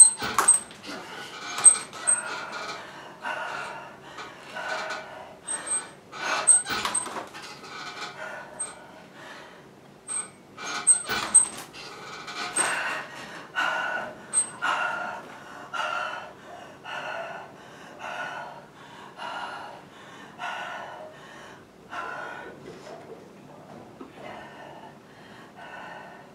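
Heavy panting from an athlete mid-workout during banded chest-to-bar pull-ups, about one hard breath a second. A few sharp knocks and short high squeaks come through in the first half.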